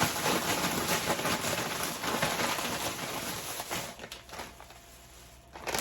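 Crinkling of plastic snack-bag packaging being handled, a dense crackle of small clicks that dies away about four seconds in, with one sharp click near the end.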